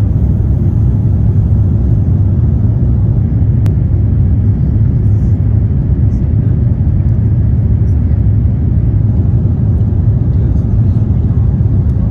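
Steady low rumble of a jet airliner's cabin in flight, engine and airflow noise heard from inside the cabin.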